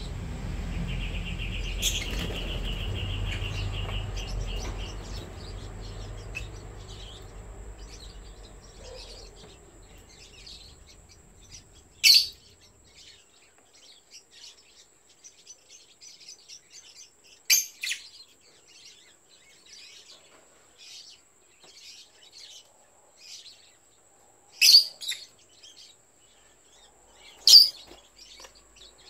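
Yellow lovebirds calling: four loud, sharp single chirps several seconds apart in the second half, among many faint short high ticks and calls. A low rumble at the start fades out over the first ten seconds.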